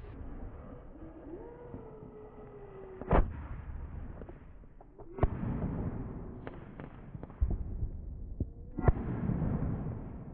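Fireworks going off: four sharp bangs spaced a second or two apart, with scattered smaller cracks and pops between them over a low rumble.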